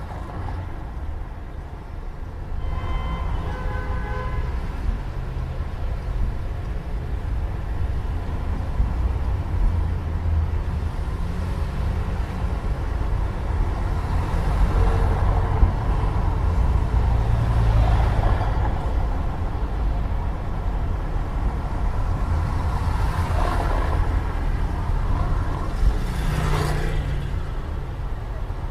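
City street traffic: a steady low rumble of road vehicles. A brief pitched tone comes about three seconds in, and louder vehicles pass by around the middle and again near the end.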